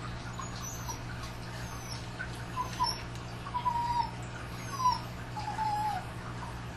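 A dog whining: a series of short, high-pitched cries, each falling away at the end, starting about two and a half seconds in, over a steady low hum.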